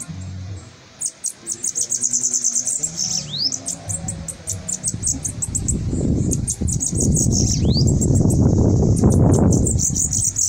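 Caged sibite (bananaquit) singing: fast, high-pitched buzzy trills, twice broken by a falling whistled sweep. Over the second half a louder low rumbling noise swells up under the song.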